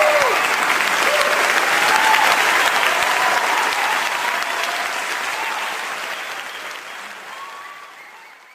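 Audience applauding in a large hall after a live tango performance, with a few voices calling out over the clapping. The band's last held note dies away at the very start, and the applause fades out toward the end.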